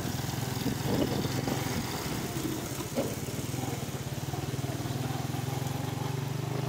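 Honda motorcycle engine running steadily while the bike is ridden slowly.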